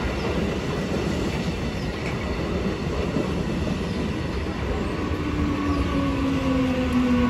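MEMU electric multiple-unit train passing close by at speed, its wheels rumbling and clattering over the rails. A low hum slides down in pitch near the end.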